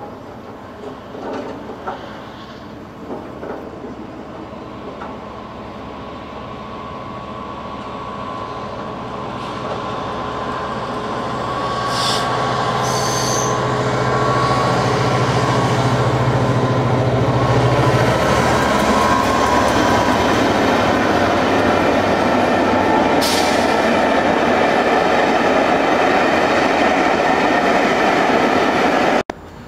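Class 67 diesel locomotive hauling a rake of Pullman coaches passes on the line. Its engine note grows as it approaches and goes by about halfway through, then the coaches' wheels on the rails keep up a steady rumble that is the loudest part. The sound cuts off suddenly near the end.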